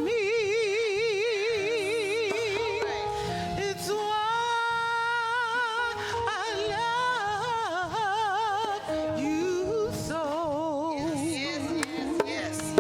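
A solo voice singing long held notes with wide, even vibrato and slides between pitches, over sustained instrumental accompaniment.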